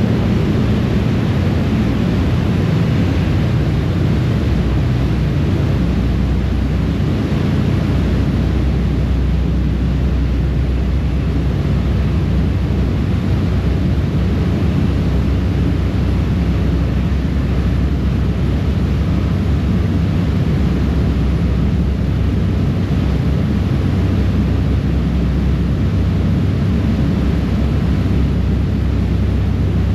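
Harbour ferry underway at cruising speed: a steady low drone of its engines, with water rushing and churning in the wake.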